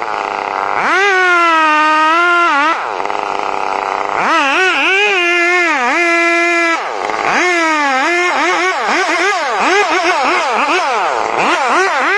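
Chainsaw engine revving and bogging as it cuts, its pitch climbing, holding and dropping again and again, with quick repeated dips in the second half.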